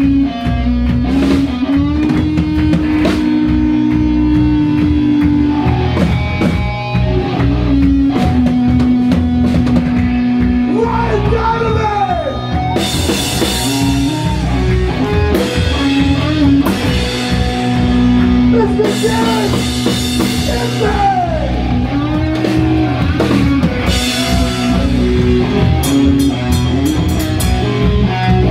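Rock band playing live: electric guitars holding chords over a drum kit, with cymbal crashes coming in hard from about halfway through.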